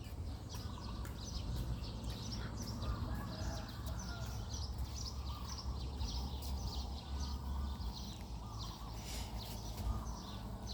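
Many small birds chirping together, short quick falling chirps overlapping throughout, over a steady low background rumble.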